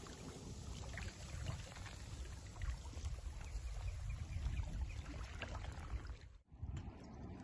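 Outdoor ambience with wind buffeting the microphone as an uneven low rumble, and faint scattered ticks above it. The sound drops out for a moment about six and a half seconds in.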